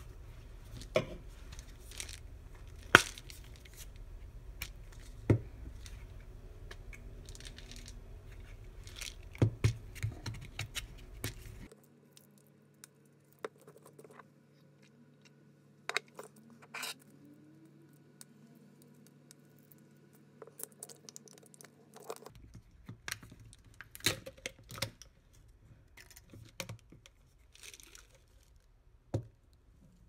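Plastic supplement bottles being handled on a countertop: scattered sharp clicks and knocks as bottles are picked up and set down and a flip-top cap is snapped open, with light rustling between.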